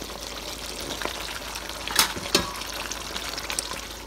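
Butter chicken sauce simmering in a nonstick pan: a steady hiss with small bubbling pops. About two seconds in come two sharp knocks, close together.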